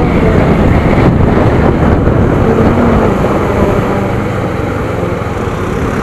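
A motorcycle ridden at road speed: a loud, steady rush of wind and engine noise at the onboard microphone.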